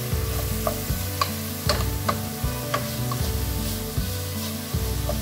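Wooden spoon stirring diced pork and vegetables frying in a large aluminium pot, with sizzling and the spoon knocking and scraping against the pot about twice a second.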